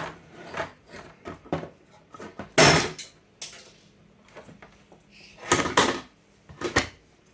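Clicks and knocks of plastic telephone parts being handled, with a loud clatter about two and a half seconds in and further knocks later. These are the sounds of the DisplayPhone's loose display glass being dropped, which did not break.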